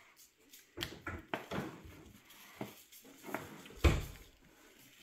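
Slabs of salted, pepper-coated pork cheek being handled on a plastic-covered wooden board: a scattering of soft knocks and rustles, with one louder thump just under four seconds in.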